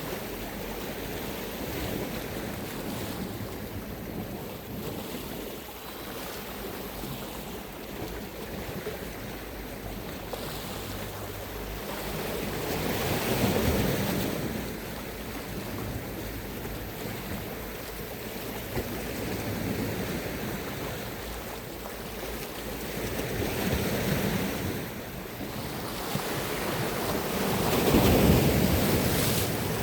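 Sea waves washing onto the shore, swelling and breaking in slow surges, loudest about 13 seconds in and again near the end, with wind buffeting the microphone.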